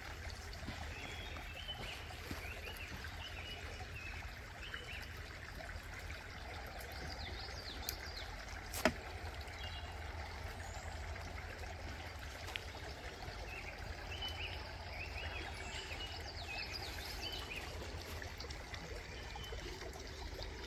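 Small creek trickling steadily over a low rumble, with faint short high chirps now and then and one sharp click about nine seconds in.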